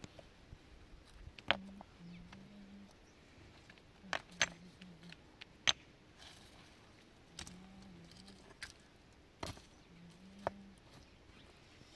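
Irregular sharp clicks and knocks, about seven, spaced one to three seconds apart, like small objects being handled or struck. A faint low tone comes and goes between them.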